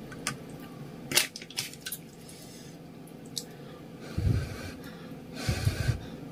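Chopsticks and a plastic spoon clicking against a plastic bowl as spicy ramen noodles are stirred, a few separate clicks. Then two short puffs of breath blowing on a mouthful of hot noodles held up on chopsticks.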